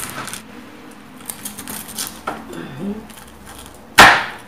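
A knife cutting through crispy fried pork on a chopping board: small crackles of the skin, then one loud, sharp crunch about four seconds in as the blade breaks through.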